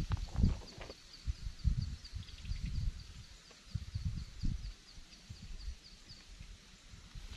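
Rhythmic high chirping from a small animal, about four short chirps a second, that stops near the end. Under it are irregular low thumps and rumble.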